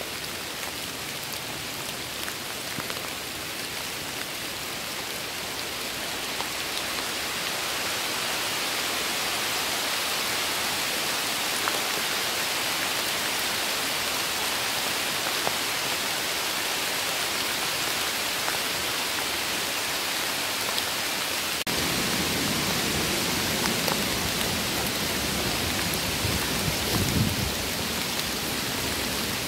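Steady rain falling on the trees and leaf litter of a wood, an even hiss. About twenty-two seconds in, a lower rustling joins it as the leaf litter is disturbed close by.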